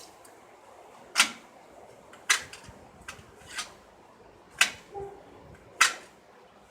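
A series of irregular sharp clicks and light knocks, about seven over several seconds, with the loudest about a second in and near the end.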